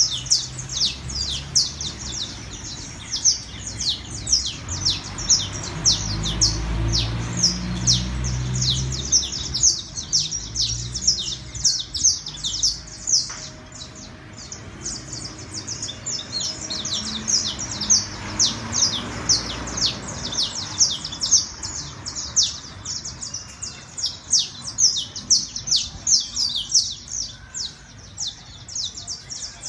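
Caged saffron finch (canario criollo) singing: long runs of quick, high chirps, each a fast downward sweep, with a lull of a few seconds midway. A low rumble sits underneath for several seconds about five seconds in.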